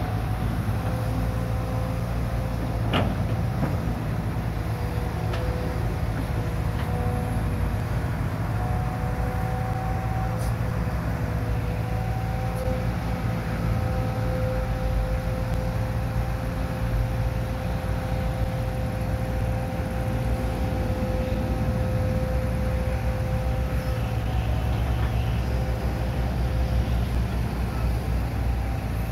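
Hitachi Zaxis 130 amphibious excavator's diesel engine running steadily as its long-reach arm works, a low rumble with a steady high whine over it. A single sharp knock about three seconds in.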